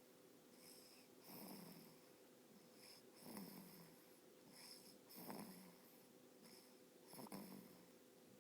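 Faint, slow snoring: four snores about two seconds apart, each sliding down in pitch, over a faint steady hum.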